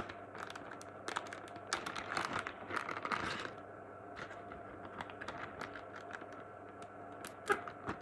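A clear plastic zip bag of small accessories crinkling and rustling as it is handled, with scattered small clicks and taps. They are busiest in the first half, with a brief rustle about three seconds in and a quick cluster of sharp clicks near the end.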